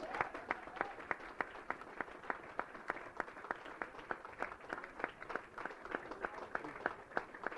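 Small audience applauding at the end of a recited poem, with a few close, distinct claps about four a second standing out over lighter clapping.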